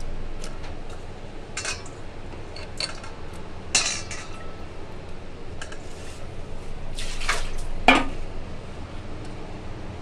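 Potato chunks being dropped and handled in an aluminium pressure cooker and steel bowl: scattered clinks and knocks of metal cookware, the loudest two about four and eight seconds in, over a low steady hum.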